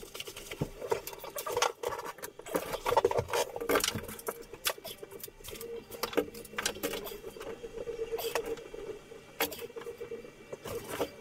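Hands handling and fitting wooden boards and trim, making irregular clicks, taps and light scrapes of wood on wood, over a faint steady hum.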